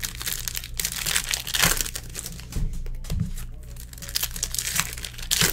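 Foil wrappers of football trading-card packs crinkling as they are handled, in irregular crackly bursts over a steady low electrical hum.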